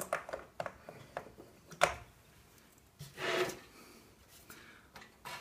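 Clicks and knocks from a chrome two-slice toaster being handled and shifted on a countertop. There is one sharp click a little under two seconds in, and a brief scraping rub a little after three seconds.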